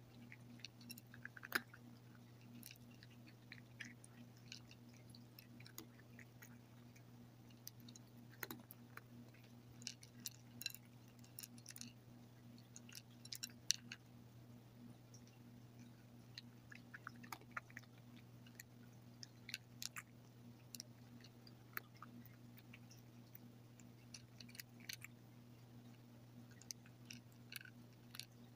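A cat chewing dry kibble: quiet, irregular crunches and clicks, coming in short runs. A faint steady low hum runs underneath.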